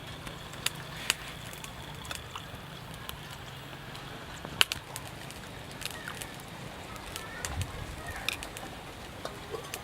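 Faint bird calls over a steady low background, with scattered sharp clicks, the loudest a little before the midpoint.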